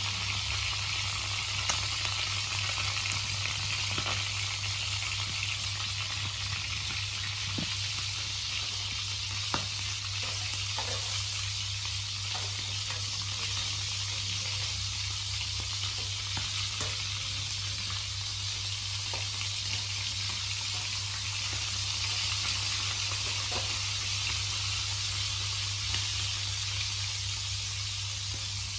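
Whole frogs frying in oil in a steel wok, a steady sizzle, with a few light clicks of the spatula against the pan.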